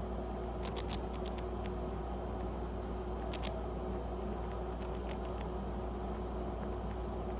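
Pet rat nibbling and crunching a cracker: small crisp clicks in short clusters, over a steady low hum.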